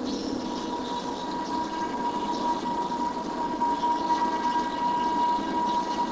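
Steady machine-like running noise with a thin, steady high whine, slowly growing louder.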